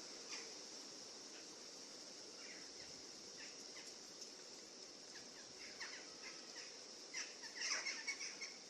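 Forest ambience: birds chirping in short, scattered calls over a steady high-pitched background hiss, with a quicker flurry of louder chirps near the end.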